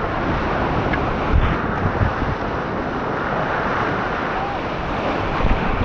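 Steady rush of whitewater on the Main Salmon River running high, about 20,000 cfs.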